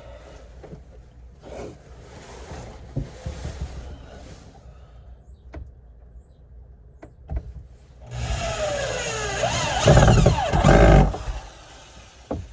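A motor running loudly for about three seconds, its pitch falling as it goes, starting and stopping abruptly. Before it there is only a low steady rumble with a few light clicks.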